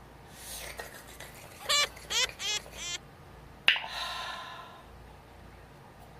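A woman's four short pitched vocal cries in quick succession, then a sharp click and a long, breathy open-mouthed exhale as she blows out the burn of very hot sauce.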